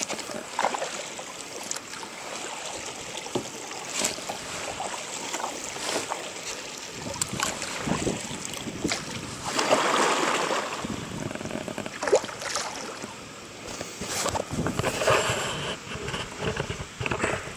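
Kayak paddle strokes: a double-bladed paddle dipping and splashing into river water about every two seconds, with a louder rush of water around ten seconds in.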